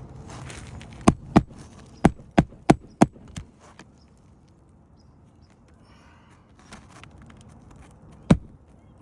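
Hammer blows on asphalt roof shingles during a shingle repair: a quick run of about seven sharp strikes a second or so in, then a single strike near the end.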